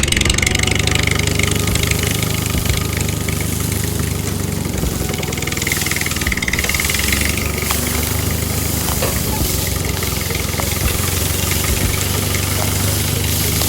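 An engine running steadily at idle, cutting in abruptly.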